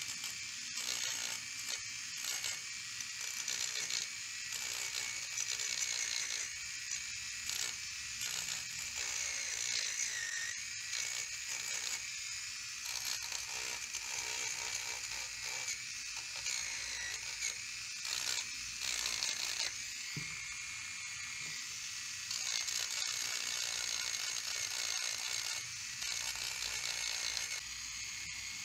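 Electric manicure file with a sapphire disc whirring against a plastic mirror frame, grinding off old glue. Its motor whine sags in pitch each time the disc presses in, over a gritty scraping that comes and goes.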